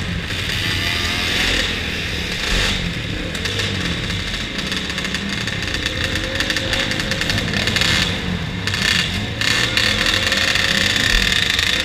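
Several flat-track race motorcycle engines running together at idle, a steady mechanical din.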